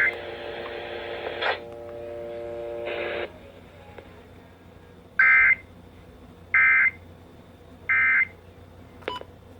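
Emergency Alert System end-of-message data bursts: three short, shrill warbling bursts of digital data about a second and a half apart, signalling the end of the alert. Before them a steady low buzzing tone from the radio cuts off about three seconds in.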